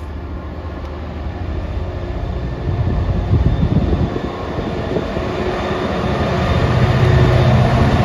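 GBRf Class 66 diesel locomotive's two-stroke V12 engine running as it approaches hauling a freight train, growing steadily louder as it nears, with the rumble of the train on the rails beneath.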